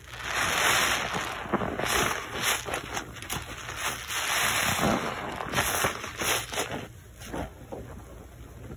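Rubber-gloved hands squeezing and rubbing a lathered bar of soap in a basin of thick foam: wet squishing of suds in several swells, quieter for the last couple of seconds.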